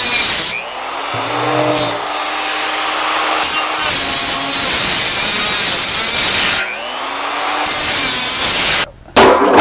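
Angle grinder with a cutting disc slicing around the rim of a steel drum: loud, rasping stretches of cutting broken by quieter moments when the disc eases off the metal, with a brief cut-out near the end.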